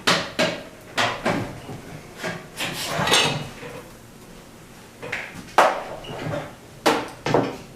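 Irregular clicks, knocks and clatter of metal computer parts and tools being handled as a Power Mac G4 is taken apart, with a longer rattle about three seconds in.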